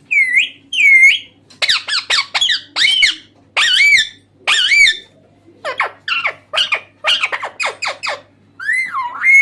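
Green parrot calling: a quick string of shrill squawks and chirps, some with a dipping, swooping pitch, in bursts with short pauses between.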